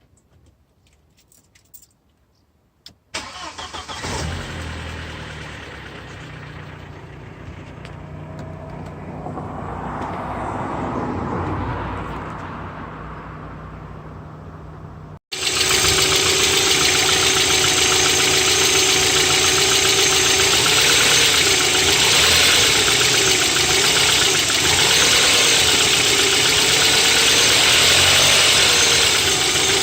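Audi 1.8T 20-valve turbocharged four-cylinder engine starting about three seconds in and idling, its idle rising and settling. About halfway through the sound cuts to a much louder, closer take with fast, dense ticking: the hydraulic lifters clattering on a high-mileage engine.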